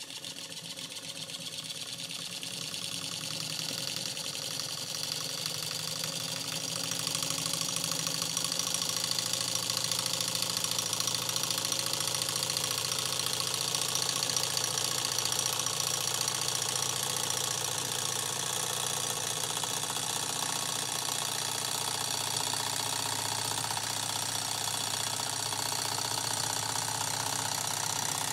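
Brand-new PM Research Peanut Rider model Stirling engine on its first run, its small mechanism clattering quickly. It gathers speed and grows louder over the first several seconds, then runs steadily.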